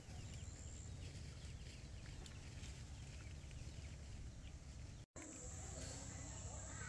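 Faint outdoor rural ambience: a low steady hum under scattered faint bird chirps. The sound cuts out for an instant about five seconds in.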